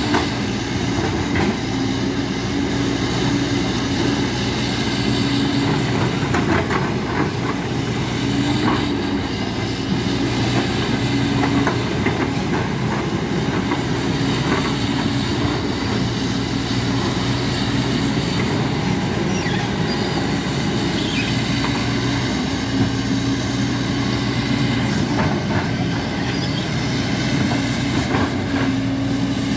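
JCB tracked excavator's diesel engine running steadily, with the steel track links clanking and squeaking as the machine moves over the rocky mud.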